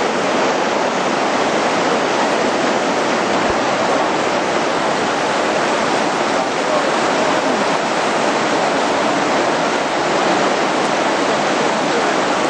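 Whitewater river rapids rushing, a steady, even wash of water noise.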